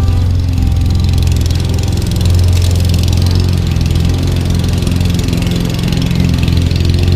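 Petrol lawn mower engine running steadily while cutting grass.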